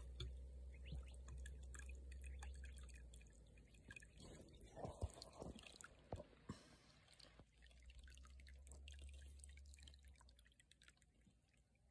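Faint dripping and trickling of water running from the brass end of a garden hose into a pond, with a few small knocks about halfway through.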